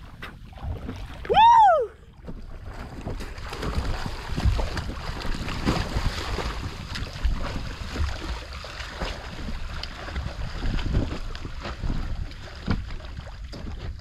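A man's short rising-and-falling cry about a second and a half in, then water sloshing and wind buffeting the microphone.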